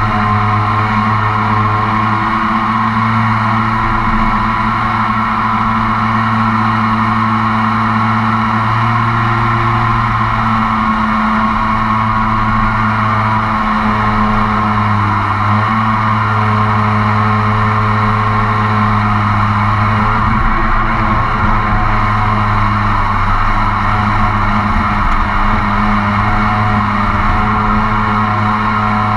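RiverRat mini jet boat's engine and jet drive running steadily under way, with the engine pitch dipping briefly a couple of times around the middle.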